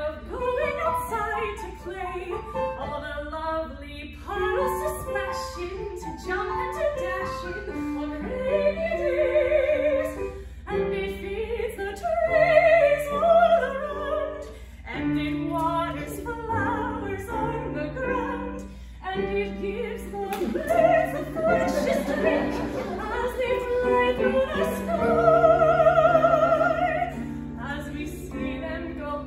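A woman singing an operatic song with vibrato, over an accompaniment of held low notes that change in steps.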